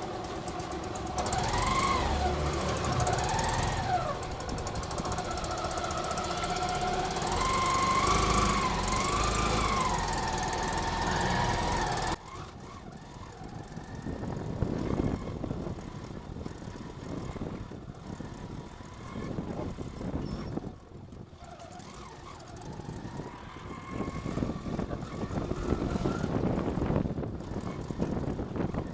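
Vehicle engine and road noise, with a tone that rises and falls several times over the first part. About twelve seconds in it cuts suddenly to quieter, rougher road rumble.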